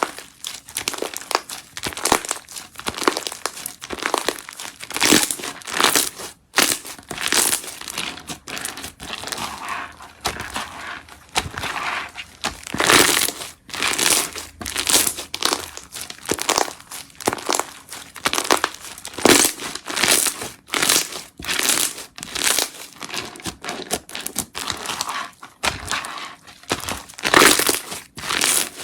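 Slime being squished and pressed by hand, making a quick, irregular run of short, sharp sounds of uneven loudness.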